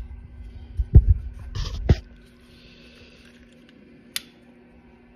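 A few loud knocks and thumps, then a brief faint hiss and one sharp click of a long butane utility lighter being sparked at a wood stove's firebox full of kindling. A steady low hum runs underneath.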